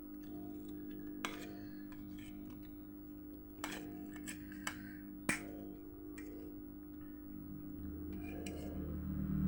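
A spoon clinking against a plate in a few sharp separate clicks, over a steady low hum. A low rumble builds near the end.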